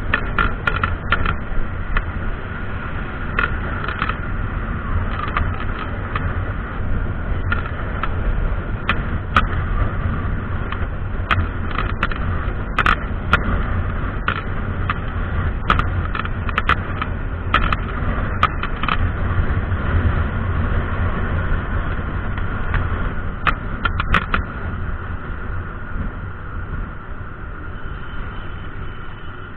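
Motorcycle riding along a highway, heard from a handlebar-mounted camera: a steady low engine and wind rumble with frequent short clicks and knocks. Near the end it grows quieter and a high steady tone comes in.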